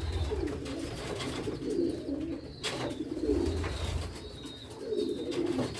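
Domestic pigeons cooing, several low wavering coos overlapping one another, with a single sharp click about two and a half seconds in.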